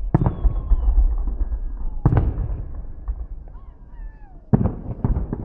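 Fireworks salute shells bursting in the sky: a loud bang just after the start, another about two seconds in, and a quick run of bangs near the end, with a low rumbling echo between them.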